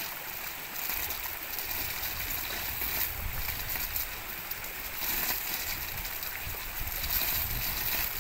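Steady rush of running water, with an uneven low rumble of wind on the microphone.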